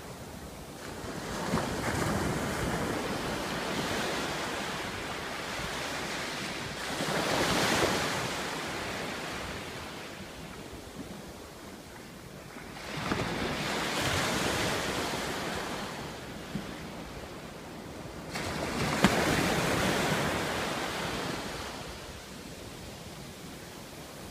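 Sea waves washing up the shore in slow surges about six seconds apart, each swelling to a hiss and then ebbing away.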